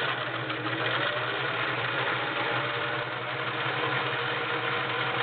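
Singer 348 all-metal, belt-driven sewing machine running steadily under its motor, stitching a decorative cam pattern.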